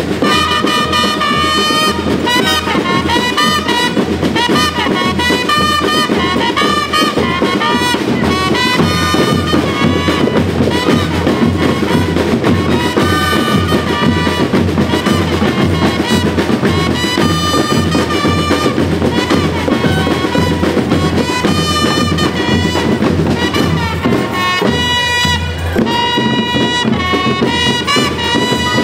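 School rhythm band playing a tune: drums keep a steady beat under a pitched melody line.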